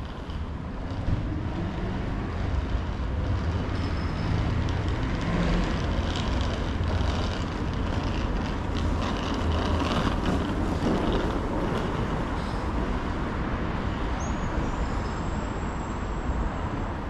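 Street traffic: a motor vehicle's low engine rumble and tyre noise, swelling to a peak about ten seconds in over the steady hum of the city.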